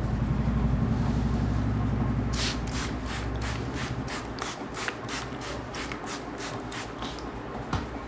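A barber's hands rubbing and patting the head during an Indian head massage, in a run of crisp strokes about four a second from about two and a half seconds in. A low rumble underlies the first half and fades out.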